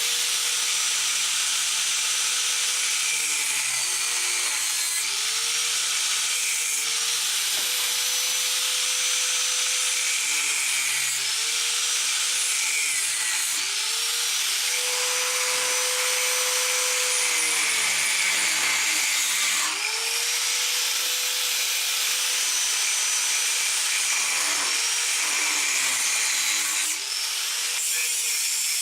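Power cutting tool cutting steel, a steady harsh cutting noise with the motor's whine sagging in pitch each time it loads into the cut and climbing back, over and over.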